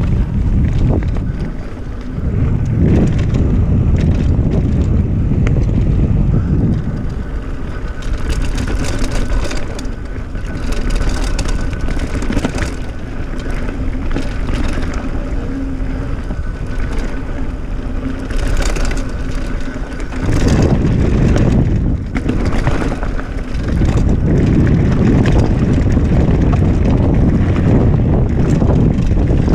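Wind buffeting the microphone on a mountain bike ridden fast down dirt singletrack, with tyre noise on the dirt and clicks and rattles from the bike over bumps. The low wind rumble is heaviest for the first several seconds and again from about two-thirds of the way in. In between, the rattling clicks stand out more.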